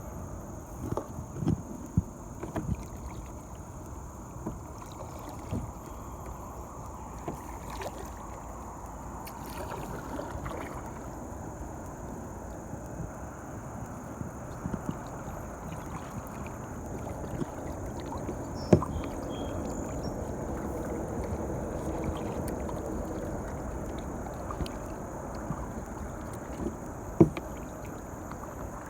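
Kayak being paddled on a river: steady water noise with scattered knocks, two louder ones about two-thirds of the way through and near the end.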